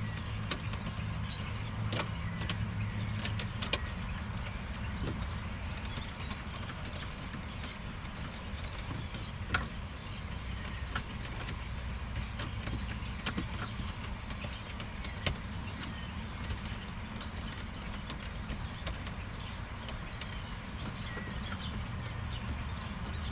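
Scattered light clicks and taps of parts being handled and fitted back into place under a car's steering column, over a steady low rumble.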